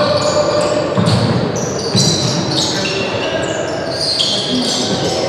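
Indoor football game in a sports hall: many short squeaks from shoes on the court floor, the ball bouncing and thudding, and voices echoing in the hall.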